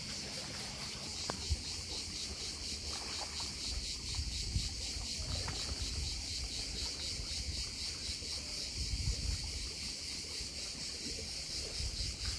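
Crickets chirring in a steady, high, evenly pulsing chorus. Beneath it runs a low rumble, with a few soft knocks at about one and a half and four and a half seconds in.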